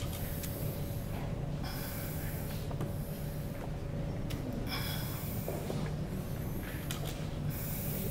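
Loud rushes of breath-like noise a second or more apart, over a steady low hum.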